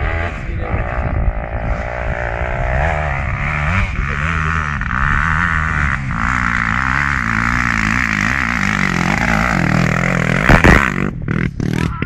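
Several enduro dirt bikes' engines running and revving, pitch rising and falling with the throttle. A sharp thump about ten and a half seconds in is the loudest moment.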